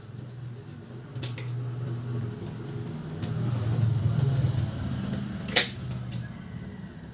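Sharp clicks and knocks from parts of a Canon LBP 2900 laser printer being handled during repair, the loudest about five and a half seconds in, over a low steady hum.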